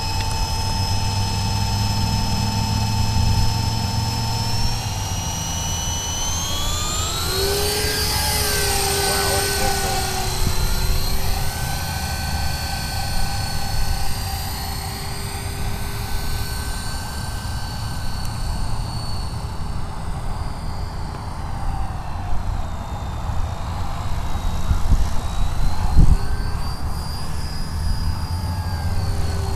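Walkera Lama 3 coaxial RC helicopter's electric motors and rotors whining, steady at first, then rising sharply in pitch about six to eight seconds in as it spools up and lifts off, and shifting up and down in pitch as it flies. A low rumble runs underneath, with a single thump near the end.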